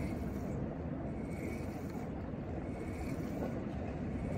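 Steady low rumble of wind buffeting the microphone on an open boat.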